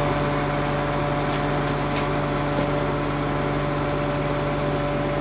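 International Harvester 1480 Axial-Flow combine running steadily during a test cut of wheat: an even machinery drone with a constant hum.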